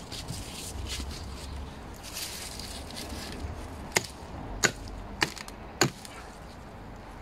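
Mattock chopping into the soil of a frosty raised bed: four sharp strikes about half a second apart, after a few seconds of fainter scraping and rustling.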